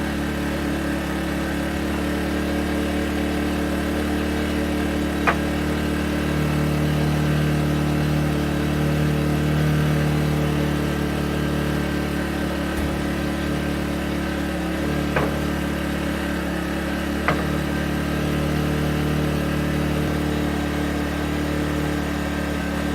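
Gentrax EC800i 800 W inverter generator's engine running steadily. Its note swells a little for a few seconds about six seconds in and again later. Three sharp clicks sound over it.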